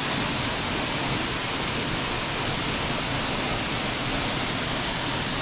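A tall waterfall plunging down a cliff into a rock pool: a steady, even rush of falling water.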